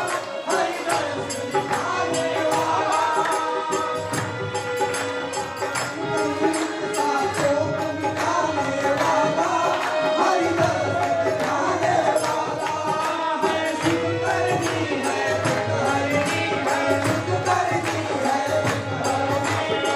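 Devotional singing with a hand drum and jingling percussion keeping a steady beat.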